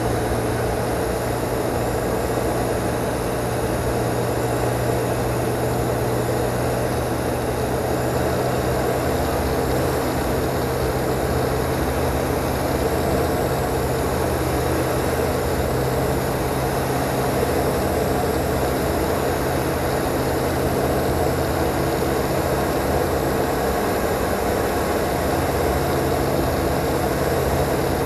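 CSA PS28 Cruiser's Rotax 912 flat-four engine and propeller running steadily in flight, heard inside the cockpit with the rush of air over the canopy.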